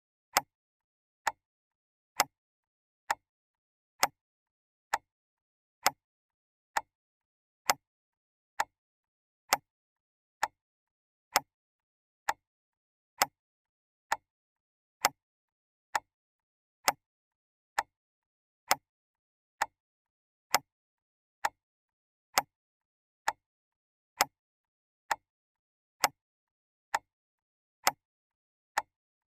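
Clock ticking: sharp, evenly spaced ticks a little faster than one a second, with silence between them.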